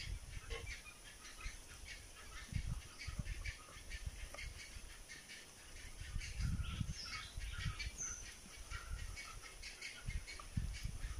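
A knife scraping the scales off a small fish on a wooden board, in quick, irregular scratchy strokes, with a few low thumps.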